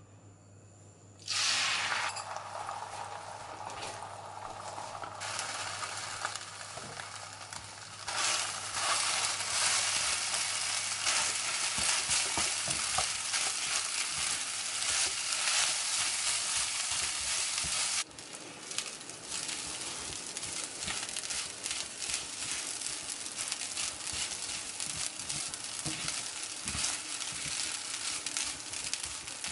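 Beaten eggs and then day-old rice frying in hot oil in a nonstick pan on high heat: a sudden loud sizzle begins about a second in as the eggs hit the oil, and it grows louder about eight seconds in. It drops back suddenly around eighteen seconds, then carries on as crackling frying with the clicks and scrapes of a spatula stirring the rice.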